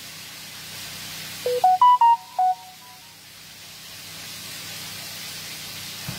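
A short electronic jingle of about six quick pitched notes, stepping up then down, about a second and a half in, over a steady hiss of broccoli and sausage frying in a pan.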